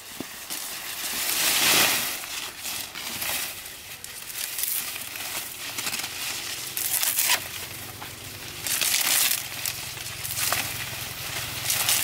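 Leafy broom grass stalks rustling and crackling as they are carried and then pulled and snapped by hand, in a series of loud surges, the strongest about two seconds in.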